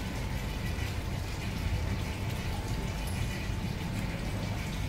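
Steady low rumble with an even hiss: dining-room background noise, no clear single event.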